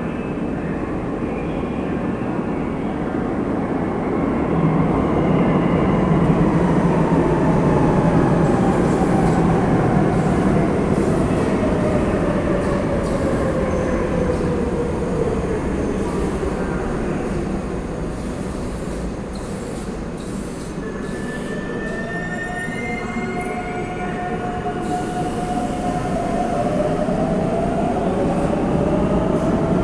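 An electric metro train arrives at an underground platform and brakes to a stop. Its rumble is accompanied by a motor whine that falls steadily in pitch as it slows, and high wheel and brake squeals come about two-thirds of the way through as it halts. Near the end a whine rises in pitch again.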